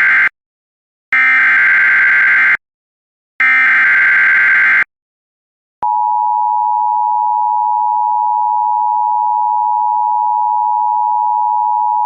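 Emergency Alert System SAME header: three bursts of digital data tones, each about a second and a half long with short silences between, the first already sounding at the start. About six seconds in, after a click, the EAS two-tone attention signal begins, a steady dual tone that marks the start of a new emergency alert.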